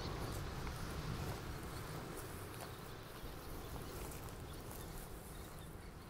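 Faint outdoor ambience: a steady, even hiss with a few light clicks.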